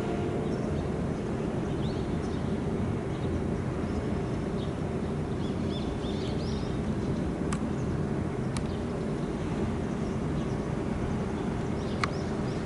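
Outdoor ambience: a steady low rumble with a faint hum, scattered short high chirps and a few sharp clicks in the second half. The last ringing of the loudspeaker chime dies away in the first half-second.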